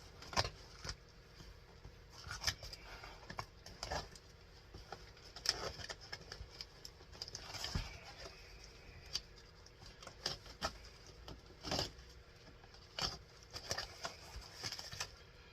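Cardboard box and its packing being opened and handled by hand: scattered light taps, clicks and rustles, irregular and short.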